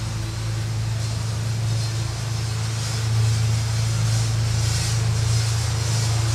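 Steady hum of a mass of honeybees buzzing from an opened hive as its frames are inspected.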